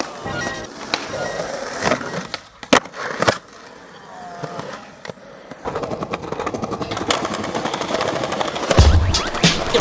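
Skateboard wheels rolling over asphalt and paving, with several sharp clacks of the board in the first few seconds. After a quieter stretch, the rolling grows louder again.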